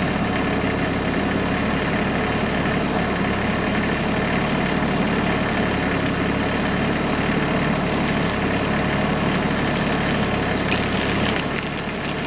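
Tractor engine running steadily at an even speed; its note drops a little shortly before the end.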